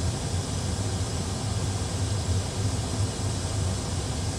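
Steady cockpit rumble and airflow rush in an Airbus A320 full flight simulator during a high-speed emergency descent, with the engines at idle and the speedbrakes extended. A low hum sits under an even hiss.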